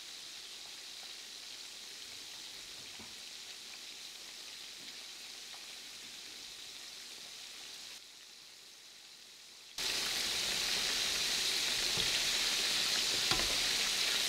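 Double-coated chicken pieces deep-frying in a pan of vegetable oil, a steady sizzle that becomes much louder about ten seconds in. A couple of faint clicks near the end.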